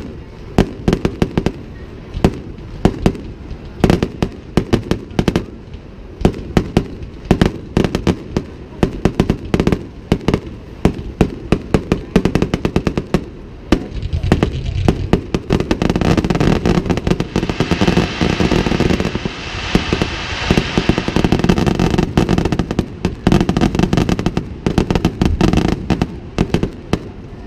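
Aerial fireworks bursting: a rapid, irregular string of bangs and pops that thickens into a dense, continuous crackle from about halfway through.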